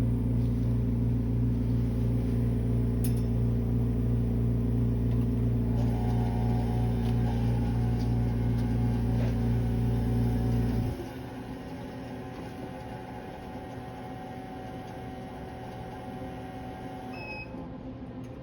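Dental amalgamator shaking an amalgam capsule: a loud, steady mechanical hum that stops abruptly about eleven seconds in, when trituration ends, leaving a quieter background hum.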